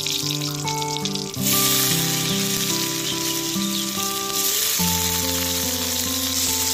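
Sliced red onions dropped into hot oil in a kadai, sizzling; the hiss grows louder about a second and a half in as the onions go in. Background music plays underneath.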